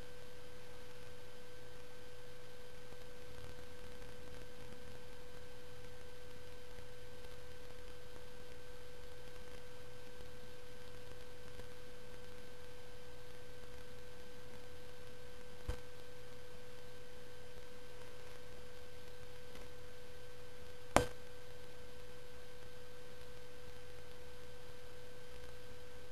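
A steady electrical whine, one even mid-pitched tone with a fainter higher overtone, unchanging throughout. Two small clicks break it, the second, past the middle, louder than the first.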